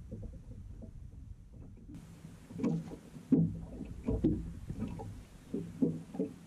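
Small waves slapping against the hull of a fishing boat at anchor, in irregular low knocks about once a second, over a light hiss of wind.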